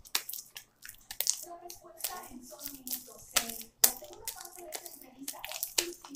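Homemade glue slime being kneaded and squeezed by hand: irregular sticky squishes and small crackles.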